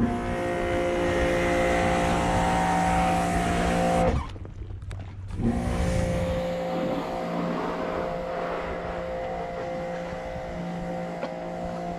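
An engine running at a steady speed, a constant hum. It cuts out suddenly about four seconds in and comes back about a second later, a little quieter.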